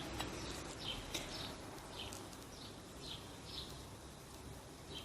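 Small birds chirping faintly, short high chirps repeating every second or so, over a faint low background hum.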